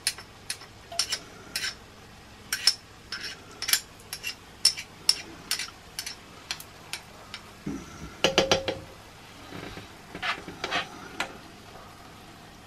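Teaspoon clinking and scraping against a glass jar of chipotle paste and the rim of a frying pan as the paste is scooped out and knocked off into the pan: a run of short, sharp clicks, busiest about eight seconds in.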